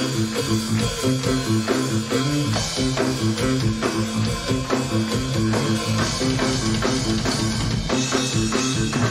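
Electric bass and drum kit playing live as a duo: a busy bass line of quick low notes over a steady rock drum beat.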